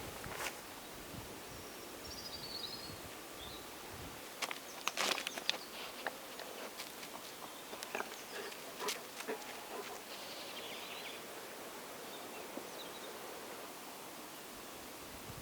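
Quiet outdoor background hiss with a few scattered light clicks and taps, the densest cluster about five seconds in, and faint high chirps twice.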